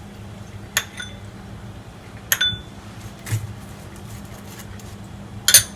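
Four separate clinks of a kitchen utensil against a dish, each with a short ringing tone; the last, near the end, is the loudest. A steady low hum runs underneath.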